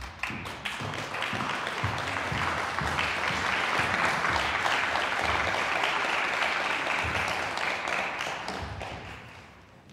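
Audience applauding. It builds over the first second or so, holds steady, and dies away near the end.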